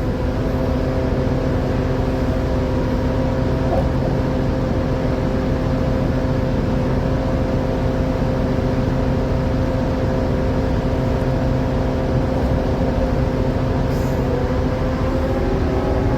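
KRDI diesel multiple unit's engine and transmission running at a steady speed, a steady drone of several tones held at one pitch. Right at the end the pitch starts to rise as the power picks up again.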